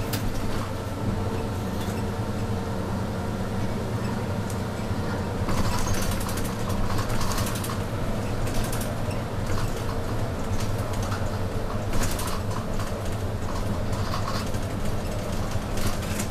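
A city route bus running along the road, heard from inside the cabin near the front: a steady engine and road hum. Bouts of rattling from the bus's fittings come a few seconds in, again about twelve seconds in, and near the end.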